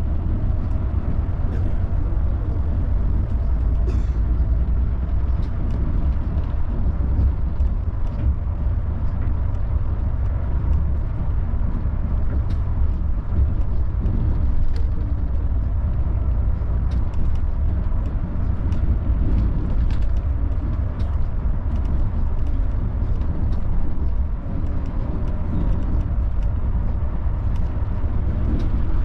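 Volvo B11R multi-axle bus travelling on the road: a steady, low rumble of engine and tyres, with scattered light rattles and clicks.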